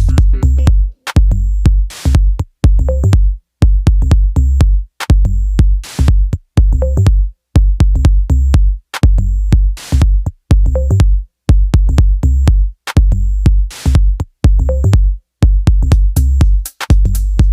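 Electronic background music with a heavy drum-machine bass beat and a choppy, stop-start rhythm.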